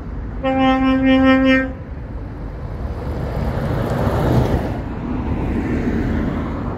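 A truck horn gives one steady blast of a bit over a second. Then a Renault tractor unit's diesel engine and tyres go by close, loudest about four seconds in.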